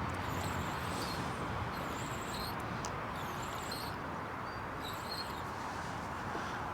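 Steady outdoor background hiss, with short high-pitched bird chirps recurring about every second or so.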